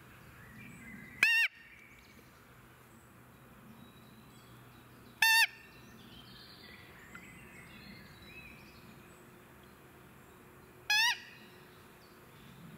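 Roe deer call (Blatter) blown three times, a few seconds apart: short, high, slightly wavering peeps imitating a doe's fiep call, used to lure a rutting roebuck. Faint birdsong in the background.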